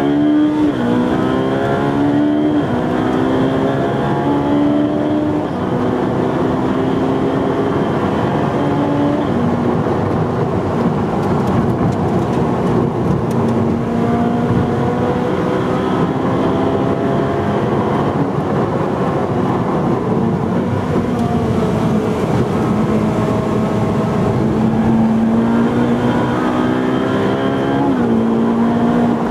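Ferrari 458 Speciale's naturally aspirated V8 heard from inside the cabin, running hard with its pitch gliding and stepping as the revs change. Near the end the revs climb steadily, then drop suddenly.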